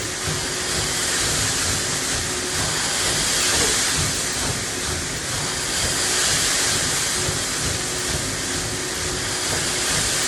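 Farm harvest machinery running steadily: a constant hiss with one steady hum and an uneven low rumble.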